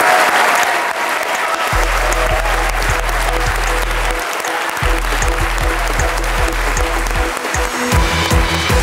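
Studio audience applauding, with music coming in about two seconds in: a deep bass line with a steady beat under the clapping.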